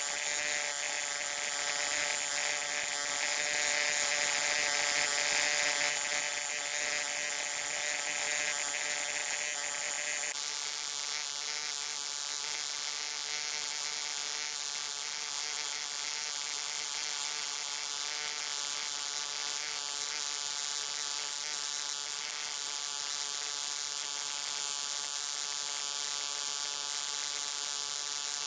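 Low-voltage electric arc buzzing steadily, a dense electrical buzz with a hiss on top; about ten seconds in the hiss drops back a little and the buzz carries on evenly.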